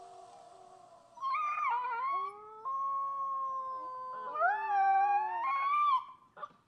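Husky puppy howling: after a faint first second, three drawn-out calls, the first wavering, the middle one held on a steady note, the last rising and bending in pitch, ending about six seconds in.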